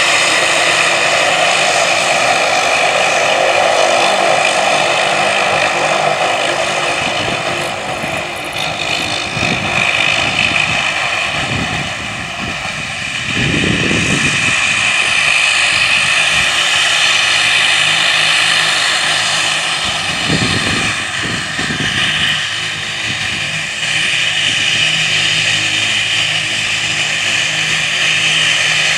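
Twin turboprop engines of a de Havilland Canada Dash 8 airliner running as it taxis: a steady, high turbine whine over propeller drone. Two brief low rumbles break in, about halfway and about two-thirds of the way through.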